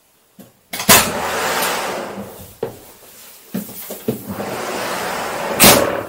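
Side door of an ambulance's patient compartment opening with a loud clatter, a person climbing in with a few knocks and footsteps, then the door being shut with a loud bang near the end.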